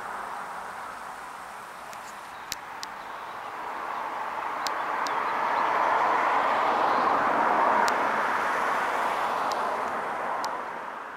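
Steady rushing of motorway traffic, swelling for a few seconds mid-way as vehicles pass closer, then easing off near the end. A few faint sharp ticks sound over it.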